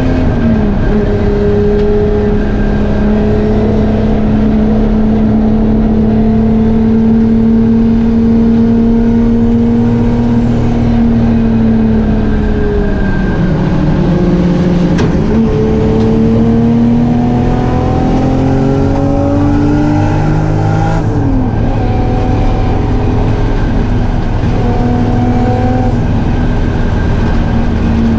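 Drift car engine running hard at high revs, its pitch holding steady, dipping about thirteen seconds in, climbing again, then dropping sharply about twenty-one seconds in before settling.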